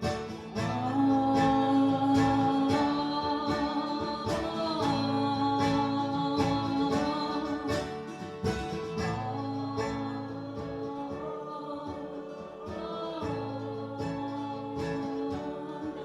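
Acoustic guitar strumming under an audience singing along in two parts, with long held notes and no words in two long phrases.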